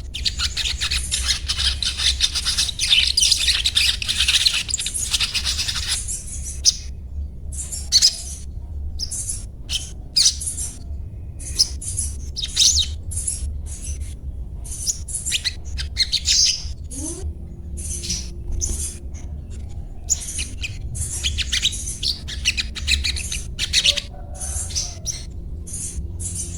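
Little spiderhunter (sogok ontong) chattering in rapid high-pitched 'cuet cuet' and 'ngriwik' calls. The calls run together for about the first six seconds, then come in short bursts with brief pauses, over a steady low hum.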